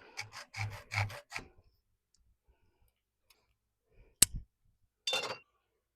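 Rhythmic rasping strokes of cutting a screen frame piece by hand, about two or three strokes a second, stopping about a second and a half in. A single sharp click about four seconds in is the loudest sound, and a short scrape follows near the end.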